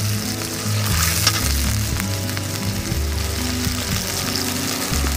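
Onion, ginger and garlic paste frying in oil in a karahi, a steady sizzle with a few brief clicks, under background music with held low bass notes.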